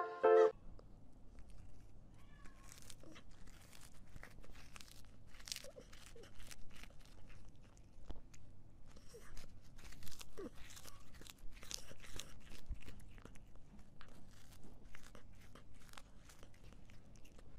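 Cat's mouth sounds close to the microphone: irregular crunching, chewing clicks.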